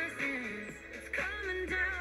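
Pop song playing, with a woman singing over the backing track.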